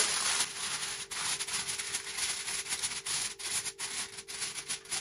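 Aluminium foil crinkling and rustling as hands press and crimp it tightly over the rim of a glass baking dish, in quick irregular scrunches.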